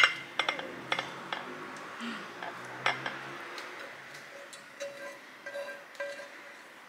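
Stainless steel pan clinking and scraping as stir-fried noodles are slid out of it onto a ceramic plate: a run of sharp metallic clinks and knocks, the loudest at the very start, lighter ones near the end.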